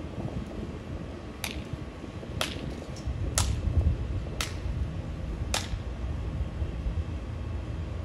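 Five sharp snaps about a second apart, over low wind rumble on the microphone.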